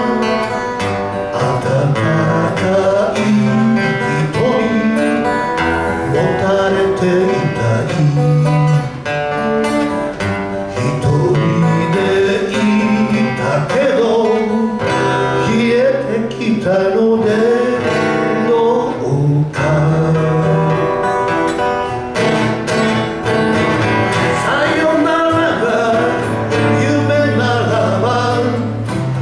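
Live song played on two acoustic guitars, with a singing voice over them.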